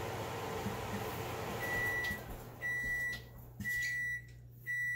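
LG over-the-range microwave oven running with a steady hum that dies away about two seconds in as its cooking cycle ends, then beeping four times, about once a second, each beep a steady high tone of about half a second signalling the end of the cycle.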